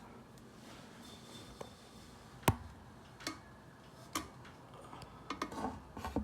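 A few scattered sharp clicks and light knocks over a quiet room, the loudest about two and a half seconds in and a small cluster near the end.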